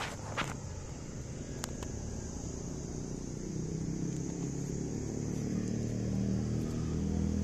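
A motor vehicle engine growing steadily louder from about halfway through, as if approaching. A steady high-pitched hiss runs behind it, and a few faint clicks come in the first two seconds.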